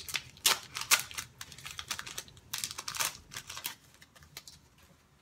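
Foil wrapper of a Pokémon trading-card booster pack crinkling and tearing as it is pulled open by hand: a run of irregular sharp crackles that dies away a little before four seconds in.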